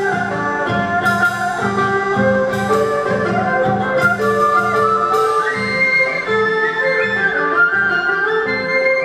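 Traditional Vietnamese instrumental music played live: a flute and a đàn bầu monochord carry the melody, with notes that slide up and down, over a steady low tone. There are several sharp percussion strikes.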